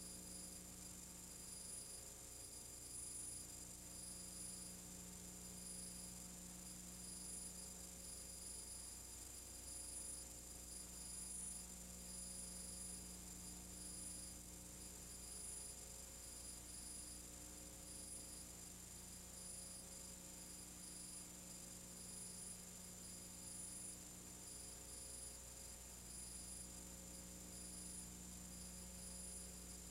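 Faint steady electrical hum with thin high-pitched whines and hiss, and nothing else: the mains hum and noise of an otherwise silent film transfer.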